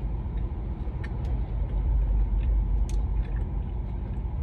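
Steady low rumble of a car's cabin on the move, with a few faint clicks.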